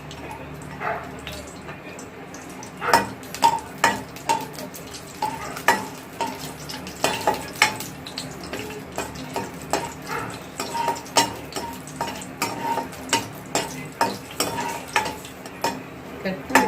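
Dry fruits frying in hot ghee in a kadai, a steady sizzle under a spoon stirring them, its strokes knocking and scraping against the pan one to two times a second from about three seconds in.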